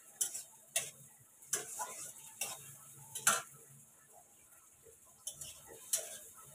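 Metal spatula scraping and clinking against a steel kadai as food is stirred, in irregular strokes about a second apart with a gap near the middle, over a faint sizzle.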